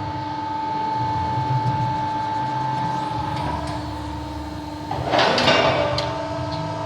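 CNC press brake running with a steady whine and a low rumble. About five seconds in comes a loud, brief rushing clatter, after which the whine settles at a lower pitch.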